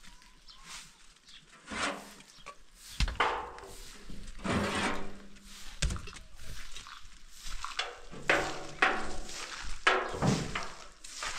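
Metal oil drums being tipped and shifted by hand, giving a series of knocks and thuds with some scraping between them.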